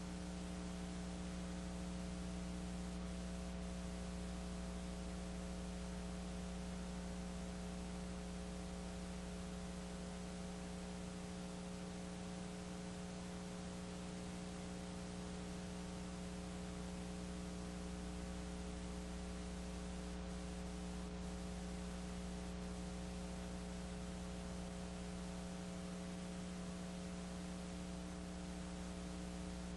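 Steady electrical mains hum with a layer of hiss, unchanging throughout, with no game or crowd sound audible above it.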